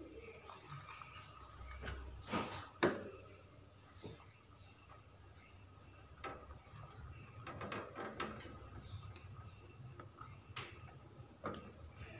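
Cats and a rabbit eating dry pellets from bowls in a wire cage: scattered crunching and knocks, with two sharp knocks about two and a half seconds in. A steady high-pitched trill runs underneath, breaking off briefly about five and eight seconds in.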